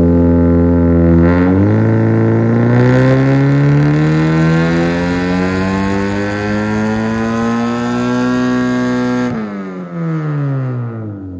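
2015 Honda Civic Si's 2.4-litre four-cylinder on a chassis dyno, pulling hard through the revs in one gear with its pitch climbing steadily. About nine seconds in the throttle closes and the revs fall away as the engine coasts down. It runs through an aftermarket exhaust with the silencer removed.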